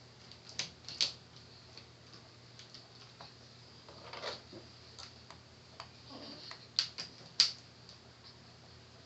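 Small Phillips screwdriver and tiny screws being worked out of a laptop screen's plastic lid: scattered sharp clicks and light taps, the loudest about a second in and near the end.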